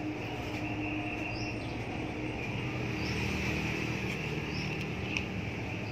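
A bird giving short, high chirps about every second and a half over a steady background hum.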